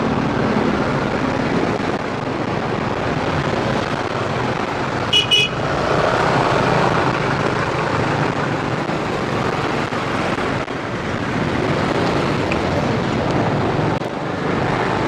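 Steady road and traffic noise while riding a motorcycle, with a short double horn beep about five seconds in.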